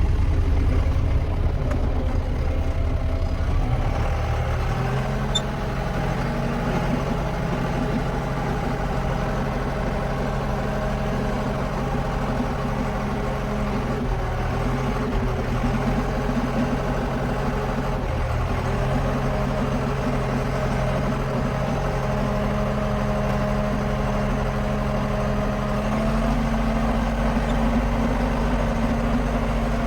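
John Deere 6420 tractor's four-cylinder diesel engine running steadily at idle, its speed stepping a few times, after its fuel lines and fuel pump were replaced to cure a no-start; it is being run to check that it stays running.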